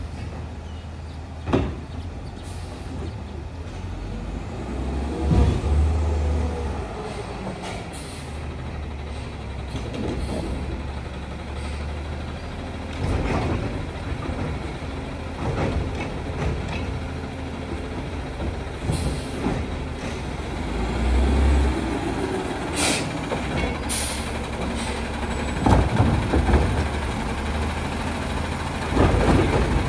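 Garbage truck's diesel engine running, swelling louder about five seconds in and again about twenty-one seconds in, with several short sharp air hisses and knocks scattered throughout.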